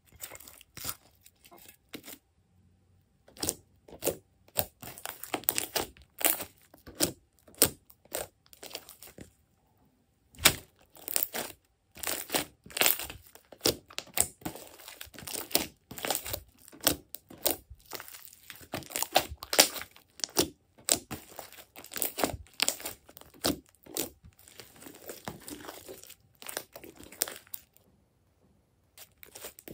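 Hands squeezing, folding and stretching glossy slime: a dense, irregular run of short sticky clicks and pops, broken by a few brief pauses.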